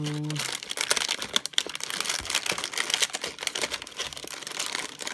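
Blind-bag toy packets crinkling and crackling as hands rummage through them, a dense irregular run of small crackles.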